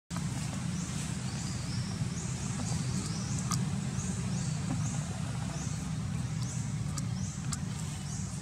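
Outdoor forest ambience: a steady low rumble under a short, high, rising chirp that repeats about every two-thirds of a second, with a few faint clicks.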